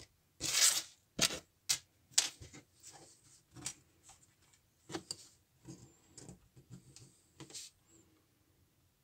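Irregular sharp clicks and taps of a small metal tool and model railway track parts being handled and pressed into place on a wooden baseboard. A short rustling scrape comes just after the start; about a dozen clicks follow, fewer and fainter toward the end.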